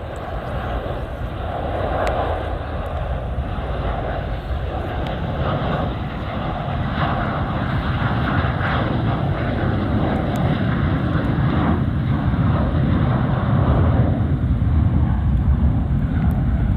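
Jet airliner engine noise: a steady, heavy rumble that grows louder toward the end.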